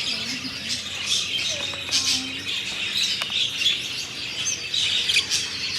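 Many caged birds chirping and calling together: a dense, continuous chatter of short high calls.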